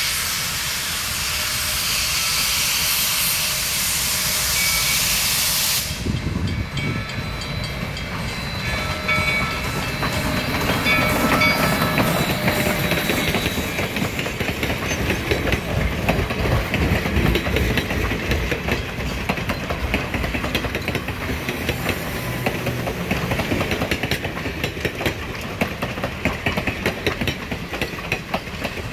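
A 2-8-0 steam locomotive passing with a loud hiss of steam that cuts off suddenly about six seconds in. The wheels of its passenger coaches then clatter steadily over the rail joints, with a few brief high squeals.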